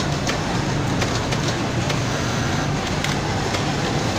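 Industrial lockstitch sewing machine stitching fabric in short runs, its low motor hum starting and stopping every second or so, with a few sharp clicks. Other machines keep up a steady din around it.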